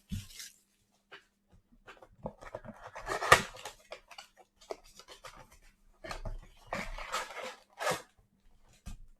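Cardboard trading-card blaster boxes being handled and opened by hand, with crinkling and tearing of their plastic overwrap in scattered bursts. There is a sharp click about three seconds in.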